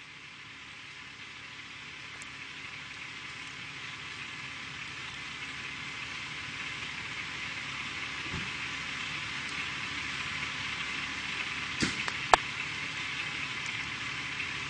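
Overhead power line arcing, a steady electrical sizzle that slowly grows louder, with two sharp pops a half second apart near the end.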